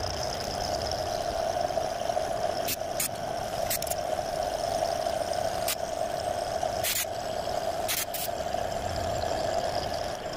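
Milling cutter on a vertical milling machine cutting a metal block under flood coolant: a steady cutting hum with occasional sharp ticks.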